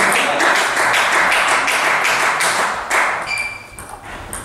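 Hand clapping from spectators for about three seconds after a table tennis point. Then, near the end, a table tennis ball pings off the bats and table as the next rally starts.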